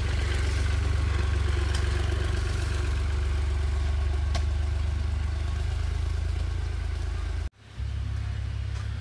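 An engine running steadily at a constant speed, a low even drone, with a few faint knocks from spade work in the soil. The sound cuts out abruptly for a moment about seven and a half seconds in, then the drone resumes.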